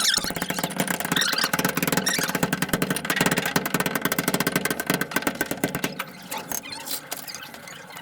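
Sped-up work noise: a motor running with a dense, rapid clatter, pitched up by the fast motion, easing off about six seconds in.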